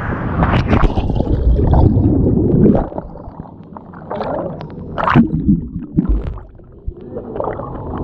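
Water gurgling and splashing close to the microphone, loudest in the first three seconds, with scattered knocks.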